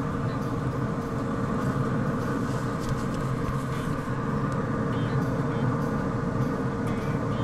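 Steady mechanical hum of a running pellet grill's combustion fan, a constant low drone with a steady tone above it and no change in pitch.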